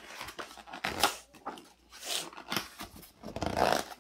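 Stiff pages of a hardcover picture book being turned by hand: several paper swishes and rustles, the loudest near the end as a page is laid flat.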